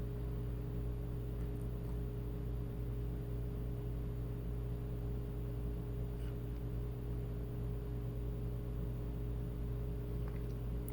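Steady low electrical hum with room noise, broken by a few faint clicks.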